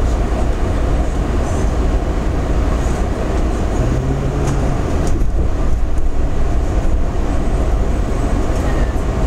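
Washington Metro train heard from inside the railcar: a steady low rumble, with a brief low hum about four seconds in.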